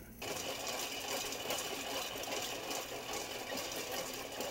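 Hand-cranked stovetop popcorn popper being turned on a gas burner, its stirring rod sweeping popcorn kernels around the bottom of the aluminium pot in a steady rattle, before any popping.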